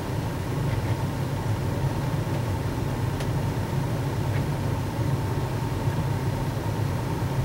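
Steady low hum of room background noise, unchanging throughout, with one faint tick about three seconds in.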